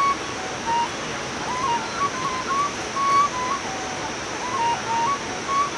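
Bamboo flute played solo: a single melody of held notes stepping up and down in a middle register, many notes entered with a short slide, over a steady background hiss.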